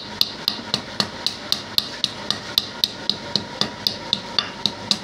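Quick, light hammer taps on a small lump of cast silver held in tongs on a stone slab, about four sharp ticks a second, chipping the slag crust off the silver.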